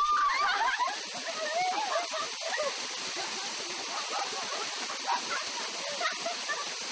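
Steady rush of a waterfall, with women's laughter and excited cries over it, loudest in the first second.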